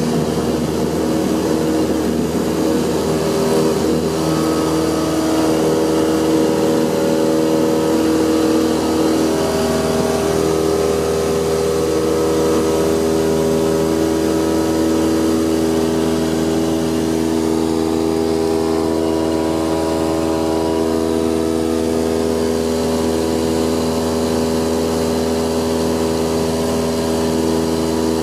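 Single-engine propeller light aircraft's piston engine and propeller at full takeoff power, heard from the cockpit as a loud, steady drone. A rough rumble from the wheels rolling on the grass strip is mixed in for the first ten seconds or so and fades at liftoff, leaving the steady engine tones of the climb.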